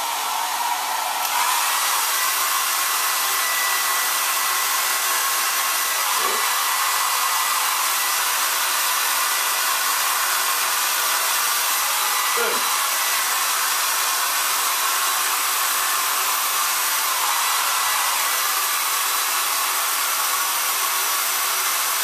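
Handheld hair dryer blowing steadily: a loud, even rush of air with a faint steady whine, stepping up slightly about a second in.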